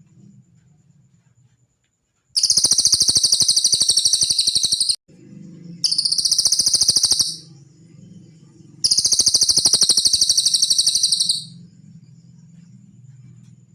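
A cililin bird singing three loud, rapid, high-pitched trills, each lasting about one and a half to two and a half seconds, with short pauses between them. A low steady hum runs underneath.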